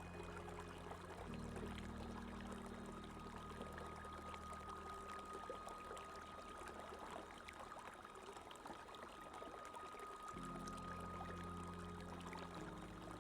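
Running water pouring and splashing steadily, with soft sustained music chords underneath that fade out in the middle and come back about ten seconds in.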